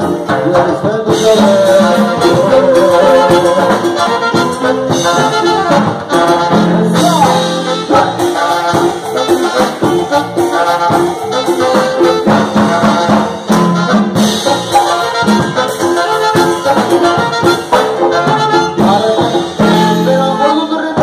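Live Latin dance band playing an instrumental passage, with a tenor saxophone playing lead over guitar, bass and a steady beat.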